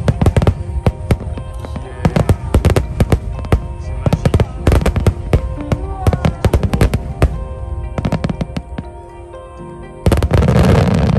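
Aerial fireworks going off in a rapid barrage of sharp bangs for about seven seconds, thinning out, then a sudden louder rush of dense crackling noise about ten seconds in. Music plays underneath.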